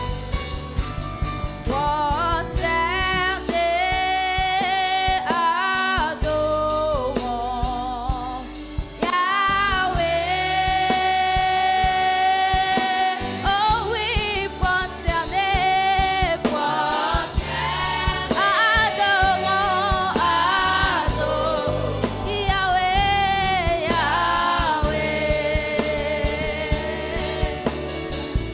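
Gospel praise and worship song: voices singing a melody with vibrato and long held notes, over instrumental accompaniment with a steady beat.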